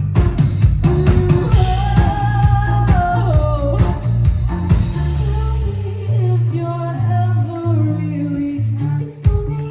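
Pop song performed live: a sung melody over a steady drum beat and bass.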